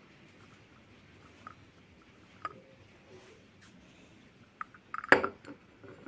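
Small clinks of a china coffee cup against its saucer as it is carried, with a louder cluster of clinks about five seconds in.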